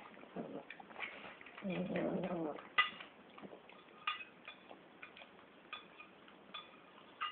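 A pug eating pieces of fruit, with wet smacking and chewing clicks throughout. About two seconds in it gives a short pitched whine lasting under a second, the loudest sound here.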